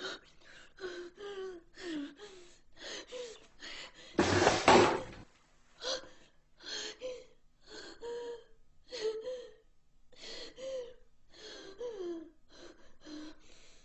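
A person's high-pitched gasps and whimpering breaths, short sliding vocal sounds coming one after another through the whole stretch, with one much louder, harsher outburst about four seconds in.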